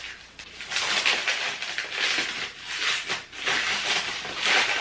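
Plastic packaging crinkling and rustling in irregular bursts as a small item is unwrapped by hand.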